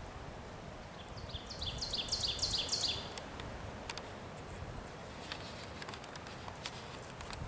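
A songbird singing a rapid series of repeated high notes for about two seconds, growing louder toward the end, followed by a few light clicks.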